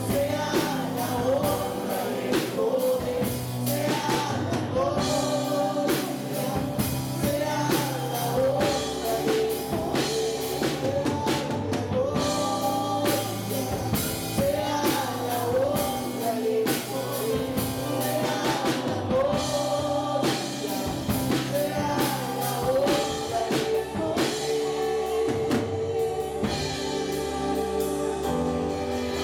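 A live worship band plays a rock-style worship song. A woman sings the lead over electric guitar, bass, keyboard and a drum kit keeping a steady beat.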